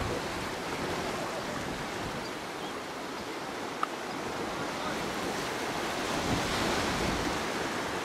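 Ocean surf washing on a rocky shore: a steady rush of waves that swells about five seconds in.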